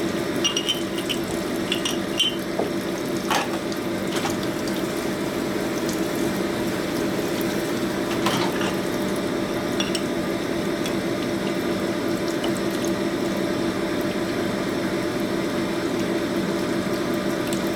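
Parts washer's pump running with solvent pouring steadily from the spout over a piston being cleaned. A couple of sharp metal clicks come about three and eight seconds in.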